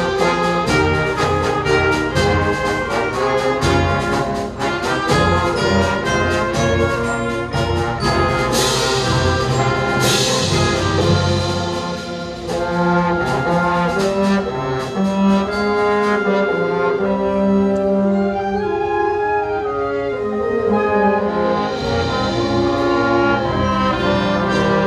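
High school concert band playing live, brass leading over rhythmic drum hits, with cymbal crashes about nine and ten seconds in. From about twelve seconds the band drops to softer held low brass notes, then swells again near the end.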